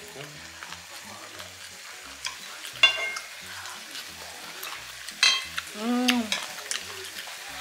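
Food sizzling in a hot pan with a steady hiss. A metal utensil clinks sharply against the pan about three seconds in and again about five seconds in. A brief pitched sound rises and falls near the end.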